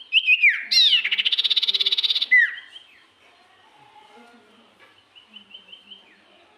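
Serpu songbird singing loudly: a few quick downslurred whistles, then a fast rattling trill lasting about a second and a half, closed by one more downslurred whistle. Fainter short rising chirps repeat near the end.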